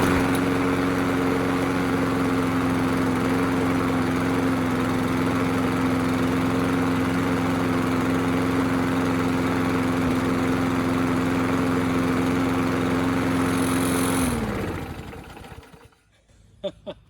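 Briggs & Stratton Quantum single-cylinder engine on a Craftsman push mower, just started, running at a steady speed. About fourteen seconds in it shuts off and winds down, its pitch falling until it stops.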